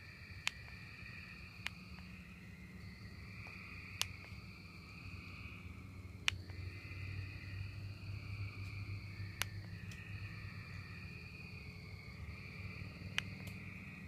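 A chorus of tree frogs calling continuously in overlapping high trills, with a few sharp clicks a couple of seconds apart.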